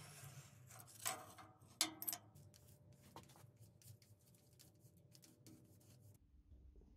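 Faint hand work on a metal guillotine fence rail: a few sharp metal clicks and scrapes in the first two seconds, then a bristle brush scratching back and forth along the rail, stopping about six seconds in.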